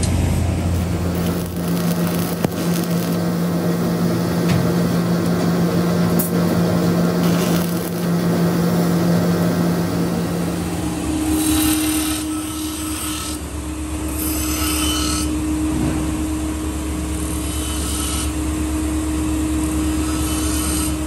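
Stick (arc) welding on a knife blade: a steady hum under the hissing crackle of the arc. About halfway through this gives way to a bench grinder running, with steel pressed against the wheel in several hissing bursts.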